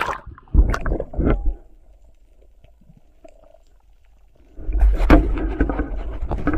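Water splashing and sloshing over a spearfisher's action camera at the choppy sea surface, then a quiet, muffled stretch of about three seconds with the camera under water, and loud churning water again from about four and a half seconds in.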